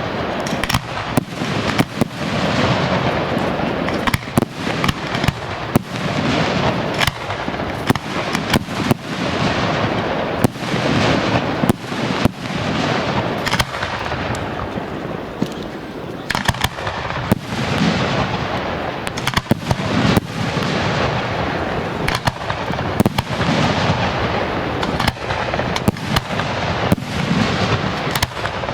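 Fireworks display: dozens of sharp firework bangs in quick, irregular succession over a continuous noisy wash of bursts.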